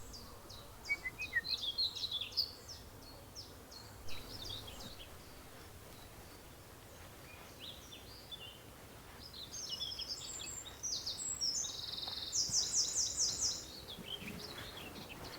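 Small birds singing, high-pitched chirps and trills in two spells, the second longer and ending in a quick run of repeated notes, over faint outdoor background noise.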